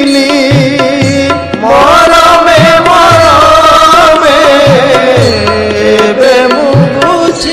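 Odia devotional song: a sung word at the start, then an instrumental interlude with a rising, then sustained melody over a steady drum beat of about one low stroke a second.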